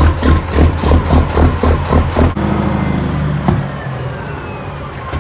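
Music with a steady beat, which cuts off about two seconds in; then a Kenworth semi truck's diesel engine is heard running at a steady low note. The engine sound drops away about a second later, with a faint falling whine.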